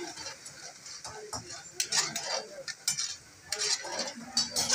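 Long metal spatula scraping and clinking against a large iron karahi as chunks of mutton and tomato are stirred and turned, over the sizzle of the meat frying. The strokes are irregular, the loudest about two seconds in and near the end.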